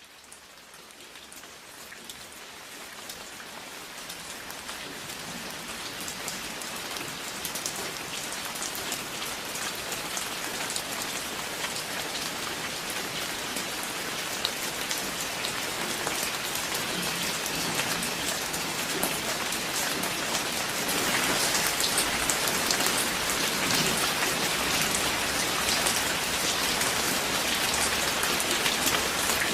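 Steady rain falling, with many individual drop hits heard through the hiss. It fades in and grows louder over the first twenty seconds or so, then holds level.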